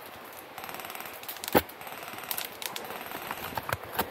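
Airsoft guns firing in the field: scattered sharp cracks and clicks, the loudest about a second and a half in.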